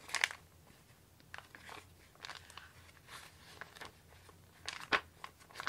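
Crisp, waxy-feeling pages of an old Peanuts paperback being turned by hand: dry crackling rustles with a few sharper snaps of paper, the loudest about a fifth of a second in and again near 5 seconds.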